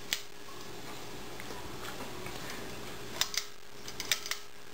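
Quiet room with a steady low hum and a faint held tone, broken by a few light clicks in two pairs, about three and four seconds in.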